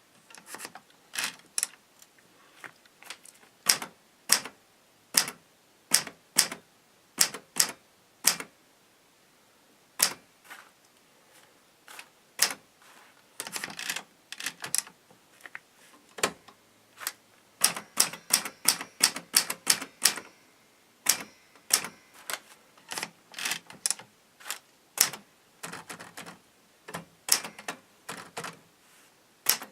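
A 1947 Remington Rand manual typewriter typing: sharp key strikes of the typebars hitting the platen, in uneven runs with short pauses.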